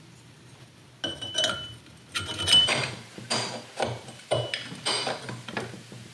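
Metal clinks and knocks of a clawfoot tub's metal drain-and-overflow pipe being handled and fitted into place, an irregular series starting about a second in, some ringing briefly.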